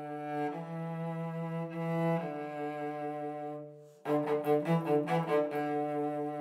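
Solo cello playing its part of a tango. Long bowed notes change pitch a few times; one fades away to a brief pause just before four seconds in, then a quick run of short, separate notes leads into another long held note.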